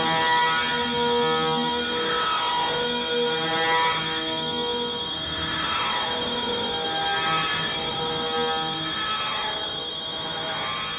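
Electronic music of generated tones: stacked, sustained pitches that change every second or so, over a constant high, warbling whistle.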